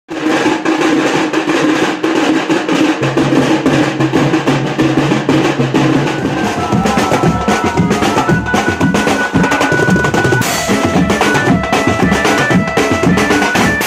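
A group of stick-played drums, rope-tensioned side drums with a large steel-shelled drum, played together in a fast, dense roll. From about halfway, steady held tones join over the drumming.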